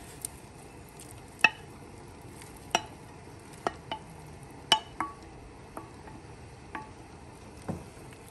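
A glass bowl knocking against the rim of an aluminium stockpot as shredded roast chicken is tipped into the broth. About nine sharp, ringing clinks, the loudest about a second and a half in and near five seconds in.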